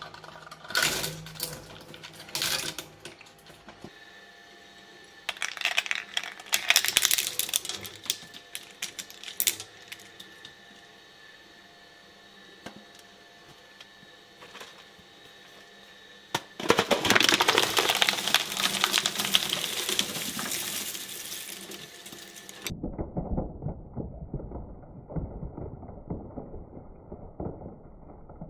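Shredder chewing through objects: bursts of crackling and clicking, then a long dense crunching stretch. About two-thirds of the way through it switches suddenly to a duller, muffled grinding noise.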